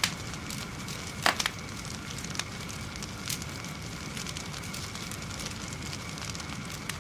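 Fire burning: a steady low rush of noise with sharp crackles and pops throughout, the loudest a quick cluster of pops about a second and a half in and a single pop a few seconds in.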